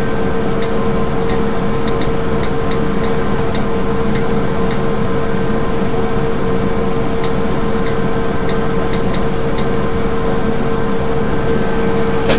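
Steady hum and hiss with a constant mid-pitched tone, dotted with faint, irregular small ticks.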